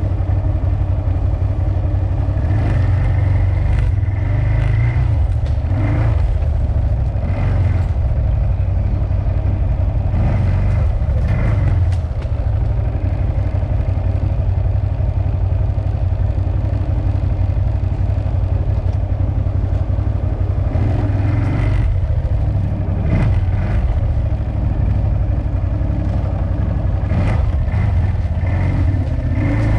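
CFMoto CForce 1000 ATV's V-twin engine running steadily while riding, with bursts of clatter and knocks several times over.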